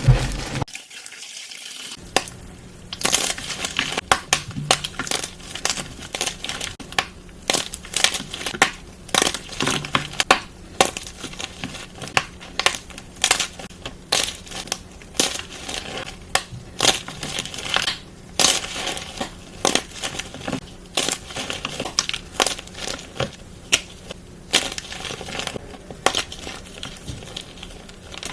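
Gym chalk being crushed and crumbled, making a dense stream of irregular dry crunches and crackles after a brief lull near the start.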